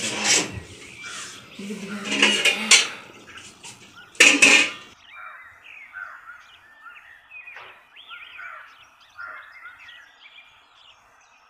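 Several loud bursts of noise in the first five seconds, then faint, scattered bird chirps.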